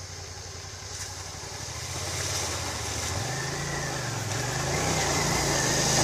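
Suzuki SV650's V-twin engine running as the motorcycle rides through a shallow creek toward the listener, growing steadily louder, its note rising and dipping with the throttle from about halfway. Water splashing off the wheels builds toward the end.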